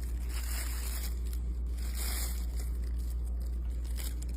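Steady low hum with faint rustling and scraping noises.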